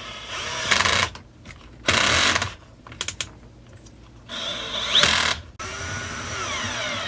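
Cordless drill/driver running in four short bursts, its motor whine sliding up and down in pitch, as it drives the top-handle screws into the chainsaw; a few light clicks come between the bursts.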